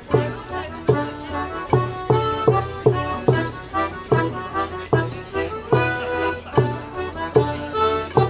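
Live morris dance tune on an accordion-type squeezebox, with a frame drum beating a steady pulse about two and a half times a second.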